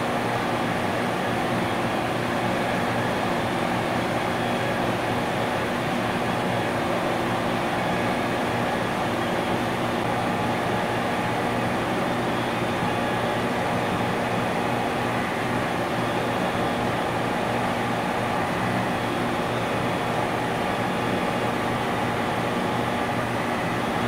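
Industrial compressor running steadily: an even hum over a layer of hiss.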